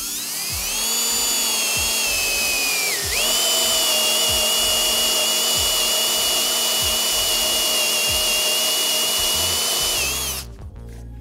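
Ridgid 18-volt cordless drill spinning a 7/8-inch spade bit into plywood: a steady motor whine that dips briefly in pitch about three seconds in, then holds steady until it stops about ten seconds in. It is drilling from one side until the bit's lead screw comes out the other side.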